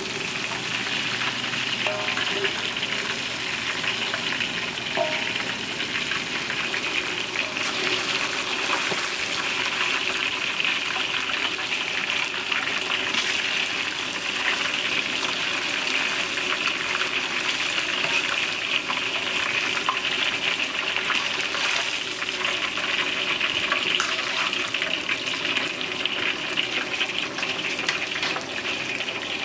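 Food frying in hot oil: a steady sizzle dense with fine crackling and spitting.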